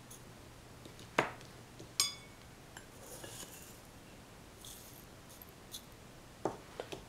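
A spoon clinking against a metal tea tin as dry loose-leaf tea is scooped out: two sharp clinks a little under a second apart, the second ringing briefly, then soft rustling of the dry leaves and a few light taps.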